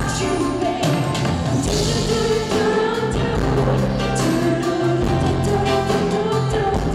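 Live pop band playing loud with a woman singing lead into a microphone, heard from among the audience in a concert hall.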